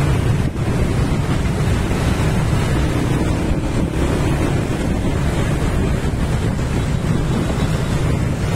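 Steady rumble of wind buffeting the microphone of a moving rider, over the running of a group of motor scooters just ahead.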